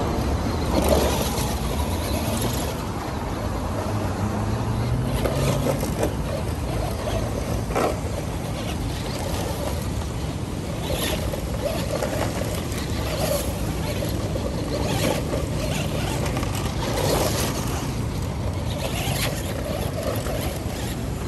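Radio-controlled 2WD truck running on dirt and gravel, its motor surging every couple of seconds as it accelerates and turns, with tyres scrabbling and throwing grit, over a steady low rumble.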